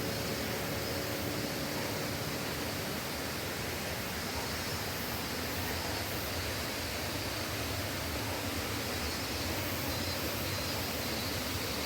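Shiramizu Falls: water pouring down and rushing, a steady, even rush of water.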